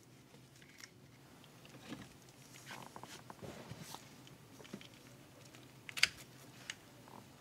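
Faint plastic clicks and handling as wiring-harness connectors are unplugged from a car's steering-column switch, with a sharper click about six seconds in.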